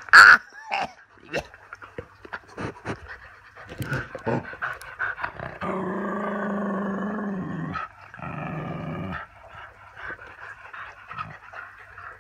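Dog growling and snuffling in rough play. There is a sharp loud sound right at the start, then short scuffles and snorts, a long steady drawn-out growl about six seconds in, and a shorter one just after eight seconds.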